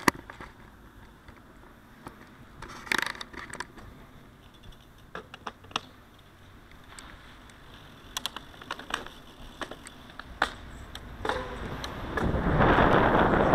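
Mountain bike rolling on paved road, giving scattered clicks and rattles. Near the end wind buffeting the camera microphone grows loud.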